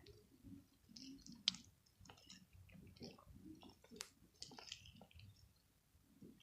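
Homemade slime being squeezed and poked in the hands, giving faint irregular sticky clicks and squelches.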